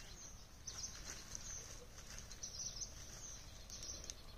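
Faint outdoor ambience: a steady high-pitched hiss with short high chirps scattered through it, the sound of birds and insects in the trees.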